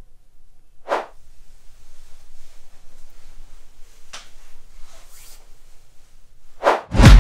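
Whoosh transition sound effects: a clear one about a second in, two fainter ones in the middle, and another near the end, right as music with a heavy beat kicks in.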